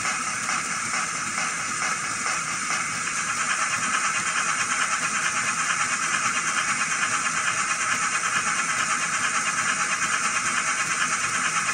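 Zimo digital sound decoder in a Bachmann OO-gauge GWR prairie tank locomotive playing steam-locomotive sound through its small speaker: a steady hiss that, about three seconds in, turns into a fast, even chuffing of about five beats a second.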